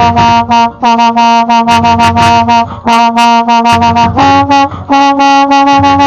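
High school marching band brass playing loud, punchy repeated notes in a driving rhythm, heard from among the players, with short breaks between phrases.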